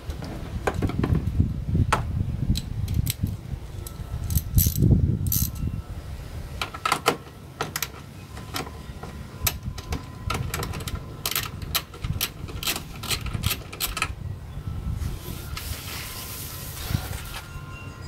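Scattered metal clicks and clanks of a 10 mm deep socket wrench working loose the mounting nuts of a car's ECU box, with low rumbling handling noise during the first several seconds and a brief hiss near the end.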